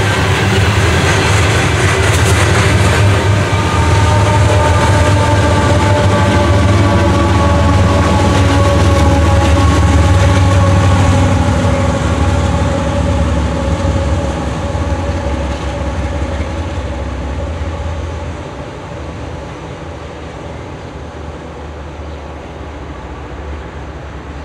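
Loaded CSX coal train running past: a heavy, steady rumble of diesel locomotives and loaded hopper cars on the rails, with several drawn-out tones that slowly fall in pitch. The sound fades to a quieter rumble over the second half.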